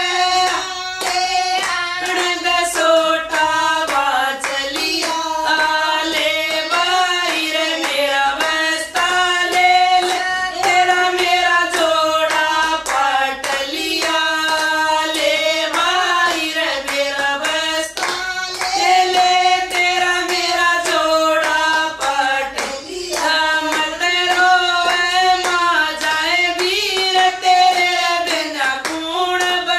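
Women singing a Haryanvi bhajan, a devotional folk song, with steady hand-clapping keeping the beat throughout.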